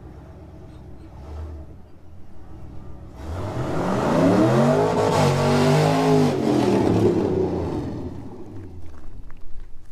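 LS-swapped Ford Ranger's 4.8 Vortec V8 at full throttle: about three seconds in it revs up hard, climbing steeply in pitch, then levels and falls away over the next few seconds. This is a test hit of the new tune, with the shift point raised to 6,000 RPM.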